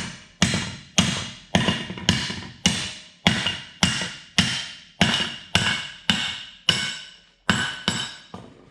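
Sledgehammer blows driving swaged wheel studs out of a Dodge 2500 front brake rotor, metal on metal: about fifteen evenly paced strikes a little under two a second, each with a short ring.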